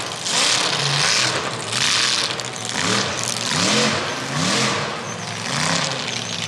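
An engine running and being revved in a series of short blips, about one a second, each rising and falling in pitch with a rush of noise.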